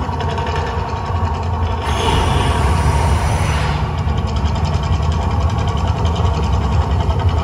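Mirage volcano show eruption: a deep, steady rumble, with a hissing whoosh of gas flame jets firing for about two seconds, starting about two seconds in.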